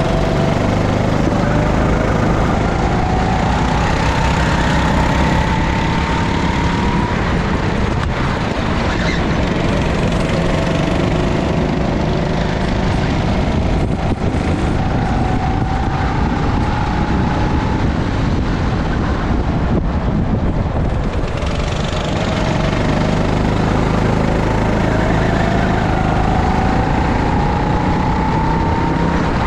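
Go-kart engine heard from on board, its pitch climbing steadily as the kart accelerates down each straight and dropping back as it slows for the corners, three times over. Heavy wind noise on the microphone runs underneath.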